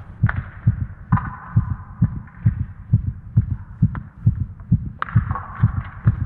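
Soundtrack built on a steady low thumping pulse, like a heartbeat, at about two and a half beats a second. A brighter, higher layer joins it about a second in and again about five seconds in.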